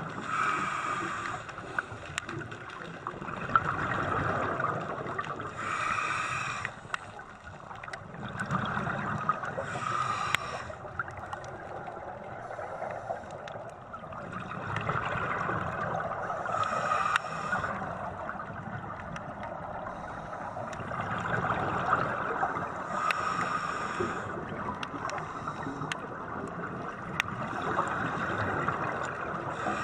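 Scuba regulator breathing heard underwater: exhaled air bubbling out in a burst about every five or six seconds, over a steady low rush of water.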